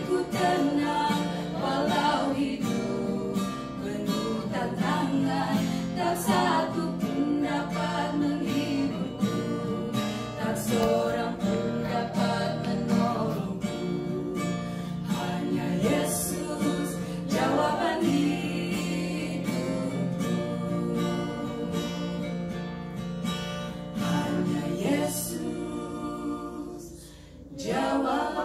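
Acoustic guitar strummed to accompany voices singing a Christian worship song, with a short lull near the end.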